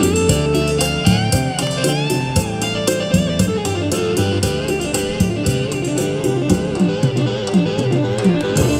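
Instrumental music: a busy run of quick notes with a few bending notes over a fast, even beat.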